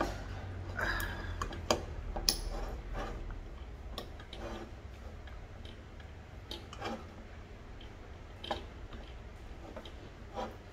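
Scattered light clicks and metallic taps from a Campingaz Bleuet camping stove being handled, its wire pot supports and fittings moved by hand. The clicks come thick in the first few seconds, then only now and then.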